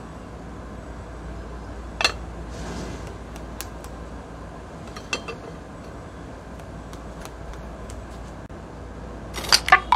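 An aluminium lid set down on a frying pan with a single sharp metal clank about two seconds in, over a low steady background. Scattered light clicks follow, and there is a quick run of clinks near the end.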